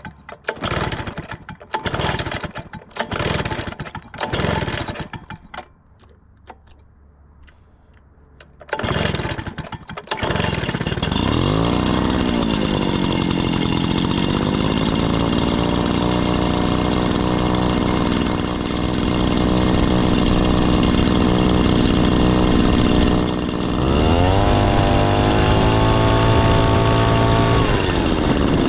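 Echo PB-400E backpack leaf blower's two-stroke engine being pull-started: a run of rope pulls, a pause, one more pull, then the engine catches about ten seconds in, revs up, and settles to a steady idle. Near the end it is throttled up to a higher steady speed and held there before easing back.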